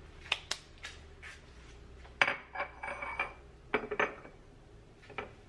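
Hard objects being handled and set down: a few light clicks, then a louder clatter with a short ring about two seconds in, two more knocks just before four seconds and a last click near the end.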